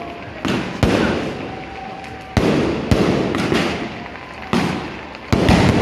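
Beehive fireworks going off in repeated volleys: bottle rockets launched en masse, about six sudden bursts of crackling bangs, each fading away over a second or so before the next.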